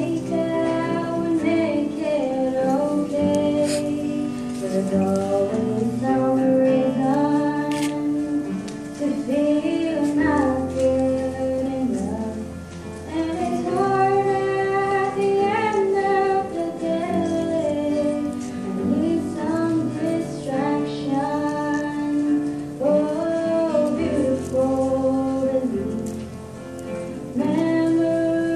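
A mixed secondary-school choir singing a slow song in held chords, accompanied by an acoustic guitar.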